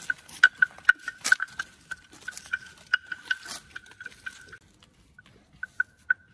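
Wooden bell hanging from an Asian elephant's neck knocking as the elephant walks, a quick run of hollow clonks on the same note, several a second. The clonks thin out after about four and a half seconds, with a few sharper clicks among them.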